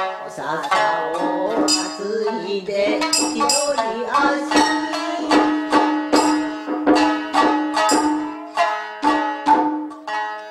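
Japanese traditional music: shamisen plucking with a singing voice accompanying a geisha dance song. The plucked notes come in a steady run, and the last ones ring out and fade near the end as the piece closes.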